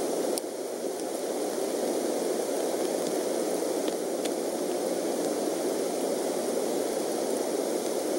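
Steady rain falling on the nest and the surrounding trees: an even hiss, with a few faint ticks.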